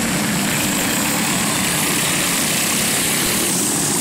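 Go-kart engines running steadily as karts race past.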